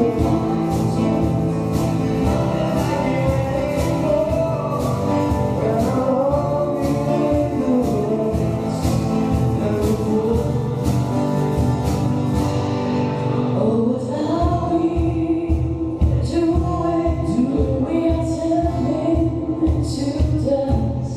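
Live acoustic band performing a pop cover: vocals over acoustic guitar, upright double bass and keyboard. About fourteen seconds in, a steady drum beat comes in, and a woman's voice leads.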